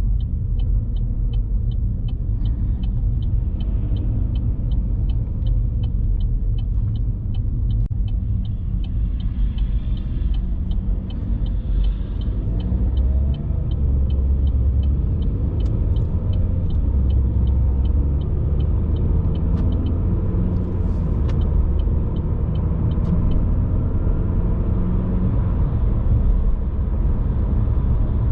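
Car driving: a steady low rumble of road and engine noise. A light ticking about twice a second runs over it and stops about 23 seconds in.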